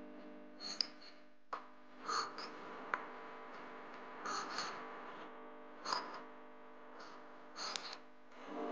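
A metal spoon mixing black-eyed bean chaat in a ceramic bowl: about five short bursts of stirring and scraping, roughly one every second and a half, with a couple of sharp clinks of the spoon against the bowl.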